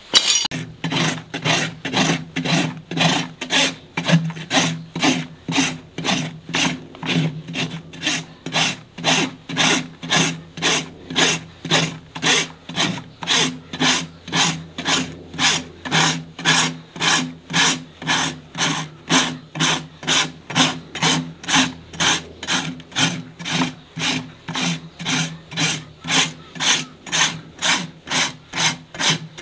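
Farrier's steel hoof rasp filing a horse's hoof wall in steady back-and-forth strokes, about two a second, each a rough scrape of steel on horn.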